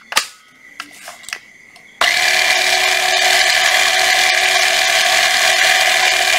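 A few light clicks, then about two seconds in a Hitachi CL 14DSL cordless threaded-rod cutter switches on and runs steadily with a whine, no rod in its cutters.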